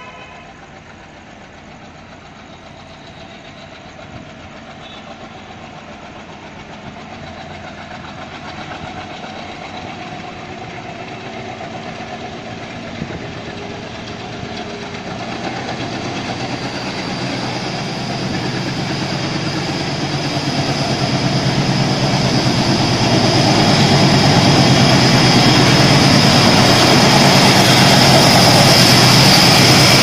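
Twin WDM-3A diesel-electric locomotives approaching at speed, their engines growing steadily from faint to loud as the train nears, with the train's running noise loudest near the end.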